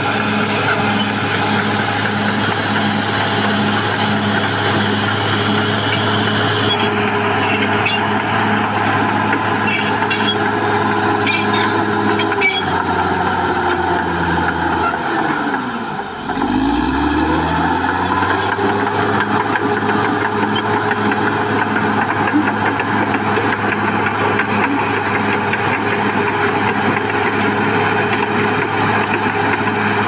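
Caterpillar D6R XL crawler bulldozer's diesel engine running under load with a steady drone. About halfway through, the engine speed sinks away and then climbs back up.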